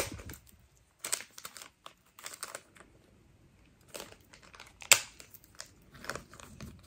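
Plastic jewelry packaging crinkling and rustling in short fits as it is worked open with some difficulty, with one sharp click about five seconds in.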